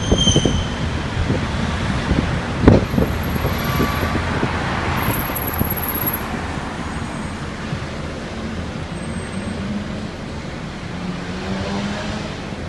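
Road and traffic noise from a taxi driving through city streets, with a few sharp knocks in the first three seconds. About five seconds in a louder rush lasts roughly a second, then the traffic noise settles lower and steady.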